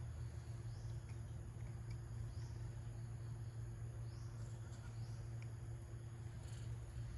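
Steady low hum with faint, short, high chirps repeating every second or two.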